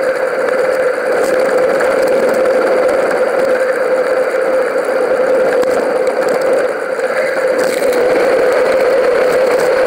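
Steady riding noise of a mountain bike rolling on tarmac, heard through a bike-mounted action camera: an even rushing drone with a constant mid-pitched hum.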